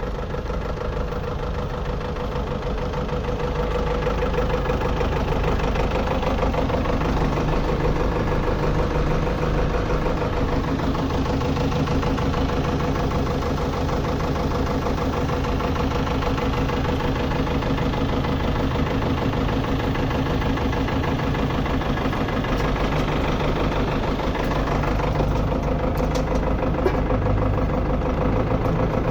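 An engine running steadily, a little louder after about four seconds, with a few faint clicks near the end.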